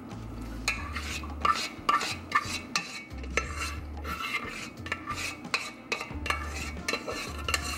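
A plastic spatula scraping and knocking against a metal saucepan as thick cheese sauce is poured and scraped out over a stainless steel bowl of macaroni. It makes an irregular run of clinks and scrapes that begins about a second in.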